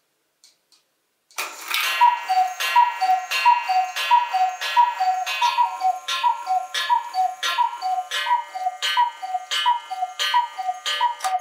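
Mechanical Black Forest cuckoo clock striking: faint ticking, then about a second and a half in, a long run of two-note cuckoo calls, high then low, about every two-thirds of a second. Each call comes with a click of the mechanism, and a stainless steel bell rings along with the calls.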